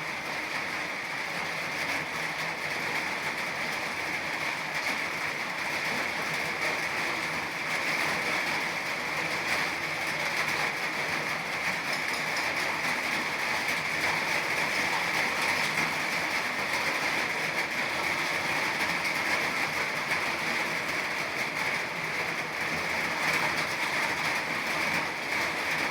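Steady rain with wind: a continuous even hiss that grows slightly louder after the first several seconds.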